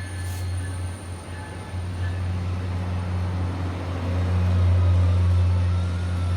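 Diesel locomotive engine, the 16-cylinder EMD 645 prime mover of an F40PH-3C, running under power as it accelerates: a steady low drone that grows louder and is loudest about four to five seconds in.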